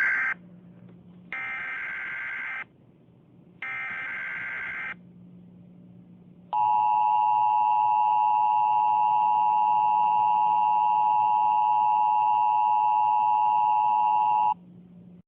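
Emergency Alert System tones: three short bursts of warbling SAME header data, then a steady attention tone of about eight seconds, over a faint low hum. The tones signal that an emergency warning is about to be read.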